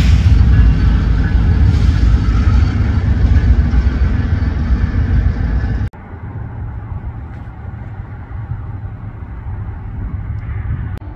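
Diesel locomotives, GE units leading the train, rumbling loudly as they pull away. About six seconds in it cuts off sharply to a much quieter low rumble of a second diesel-hauled freight train approaching from a distance.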